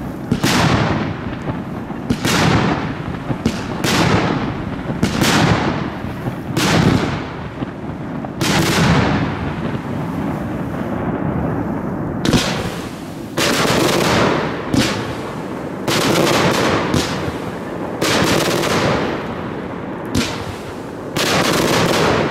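Aerial fireworks launching and bursting close by: a string of sharp bangs about one a second, a lull of a few seconds in the middle, then bangs coming thick again.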